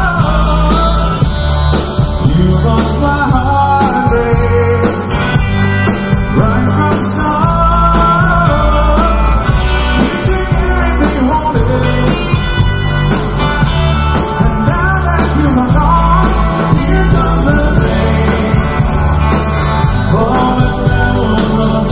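Live band playing country-rock: drums, acoustic and electric guitars, with singing.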